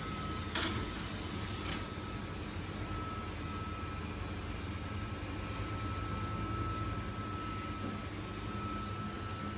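Steady mechanical hum with a thin, constant high whine over it, and two faint clicks at the start.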